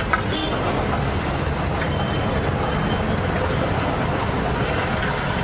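Steady low rumble with a light hiss over it, and one brief clink just after the start.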